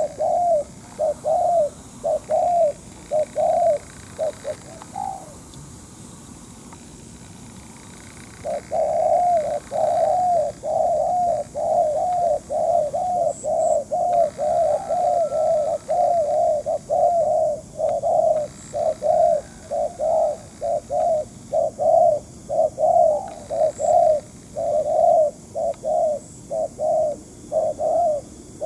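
Spotted doves cooing in a rapid run of low, repeated notes, the cooing of spotted doves at a trapping site. The cooing stops for about three seconds near the start, then runs on almost without a break.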